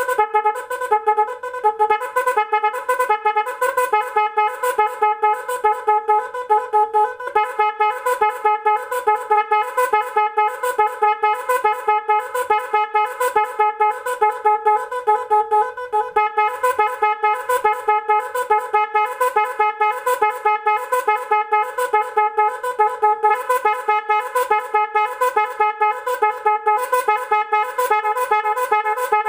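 A 12 V electric snail horn driven by a digital multi-pattern 'magic horn' controller, playing one of its 18 programmed patterns (type 9). The pattern is a loud, fast, repeating series of horn blasts, several a second, with the pitch wobbling up and down.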